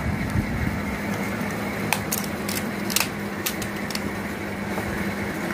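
Steady whooshing noise of a running fan, with a constant low hum under it. A few light clicks and taps come through here and there.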